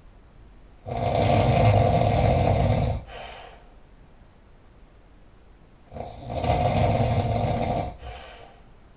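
A person snoring loudly: two long snores about five seconds apart, each lasting about two seconds and trailing off in a short, fainter tail.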